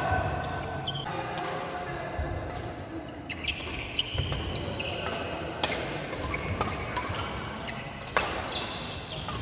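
Badminton rackets striking a shuttlecock in a fast doubles rally, a sharp hit every second or so, the loudest near the end. Short high squeaks of shoes on the wooden court and a few voices come between the hits.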